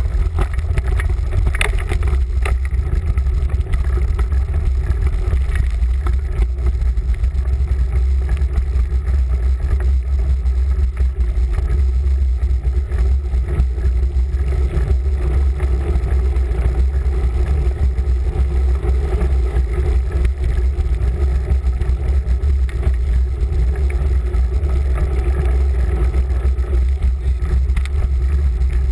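Floodwater of a river in spate rushing steadily: a constant loud, low roar with no breaks.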